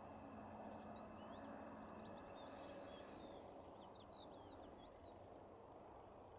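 Faint rural ambience with small songbirds chirping: a scatter of quick, high notes sweeping up and down, thinning out near the end. A faint low hum fades out about two seconds in.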